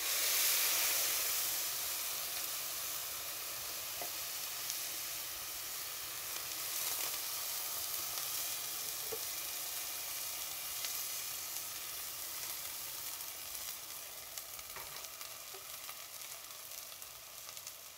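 Water poured into a hot pan of ghee-toasted vermicelli, sizzling loudly as it hits the hot fat and pan. The sizzle is loudest at first, then slowly dies down as the pan cools.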